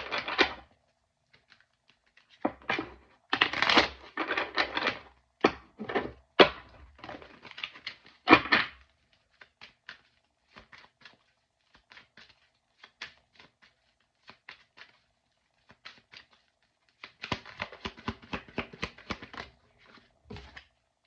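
Tarot deck being shuffled and handled by hand: loud bursts of papery card flutters and clicks, then scattered clicks, then another fast run of clicks near the end.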